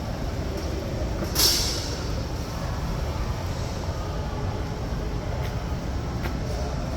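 Steady low rumbling noise, with a brief sharp hiss about a second and a half in and a couple of faint ticks near the end.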